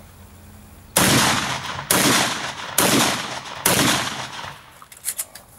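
Four gunshots from a long gun, a little under a second apart, each sharp crack trailing off in a short echo.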